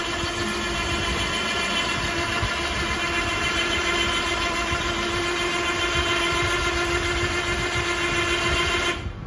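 Electric winch on an Xtreme 300cc quad bike running under heavy load, a steady whine as it reels in its cable and drags a 125cc quad with a rider aboard; it cuts off suddenly near the end.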